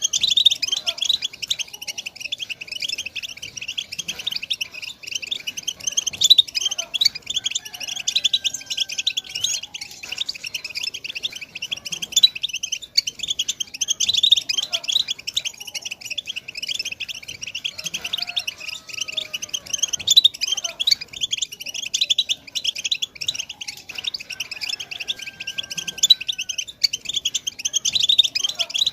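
European goldfinch singing its 'tabtaba' song: a continuous, fast twittering of rapid high notes with no pauses.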